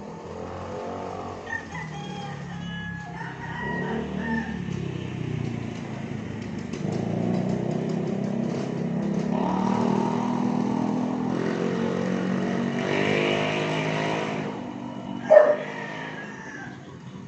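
An engine running and rising in pitch for several seconds, with a rooster crowing and chickens calling around it.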